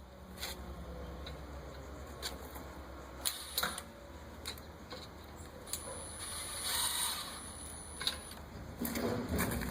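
Scattered light clicks and knocks of tools and screw hardware being handled on the gate's latch fittings, over a low steady hum, with a brief high whine and a swell of noise a little past the middle.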